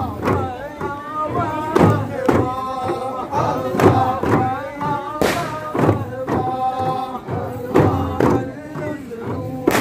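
A group of men chanting a Ratheeb dhikr together to the steady beat of duff frame drums, with sharp drum strokes landing a little more than once a second under the sung line.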